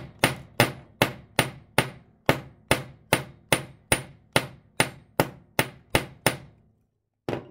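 Ball-peen hammer striking a brass bushing in a brass clock plate held on a steel anvil: about two and a half sharp blows a second, a short pause, then two more near the end. The bushing's edges are being peened down into the plate to fix it in place.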